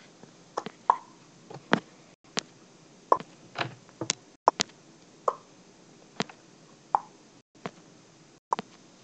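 LEGO minifigures and plastic bricks being handled on a baseplate: about a dozen sharp plastic clicks and taps at irregular intervals, some with a brief ring.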